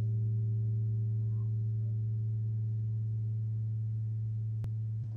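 A single low note held on an electronic keyboard, a steady, unwavering tone that does not decay, cut off suddenly near the end.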